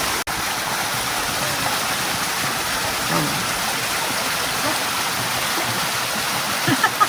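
Small waterfall and stream running steadily, an even rush of water, with a momentary dropout just after the start.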